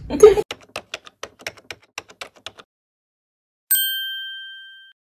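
Typewriter sound effect: a quick run of key clacks, about eight a second, for about two seconds, then a pause and a single bright bell ding that rings out and fades over about a second.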